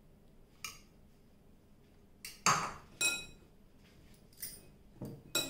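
Several separate clinks of a spoon, bowls and bangles against a glass mixing bowl as ghee is spooned into flour and rubbed in by hand, the loudest about halfway through.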